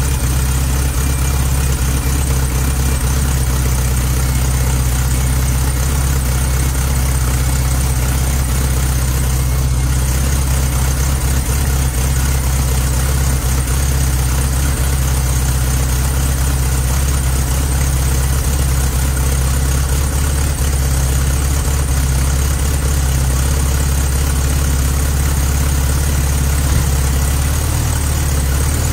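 1970 Volkswagen Beetle's air-cooled flat-four engine idling steadily, freshly reinstalled and running.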